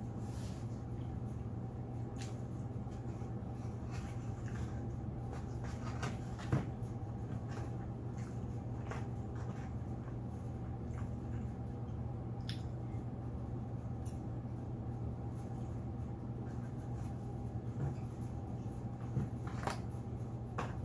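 Eating sounds: chewing and handling of food, heard as scattered small clicks and ticks over a steady low hum.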